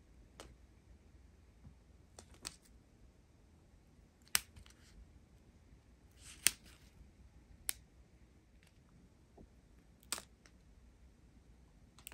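Thin plastic zip bags of diamond-painting drills crinkling now and then as a strip of them is handled and pulled along. About seven short, sharp crackles, a second or two apart, with a brief rustle after one of them.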